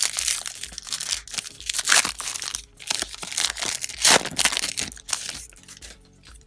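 Plastic wrapper of a basketball trading-card pack being torn open and crinkled by hand, a dense run of crackling that fades out near the end.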